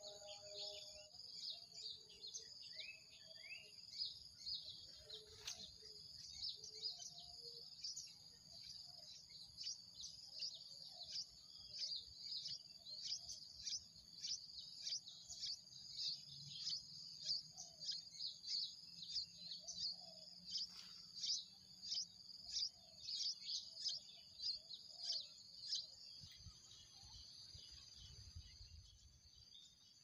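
Bulbul nestlings begging for food with rapid, short, high-pitched chirps, thickest around the middle, over a steady high-pitched drone. A low rumble comes in near the end.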